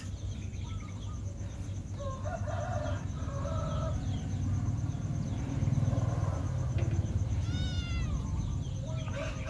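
Faint rooster crowing over a low steady rumble, with a short high kitten mew about three-quarters of the way through.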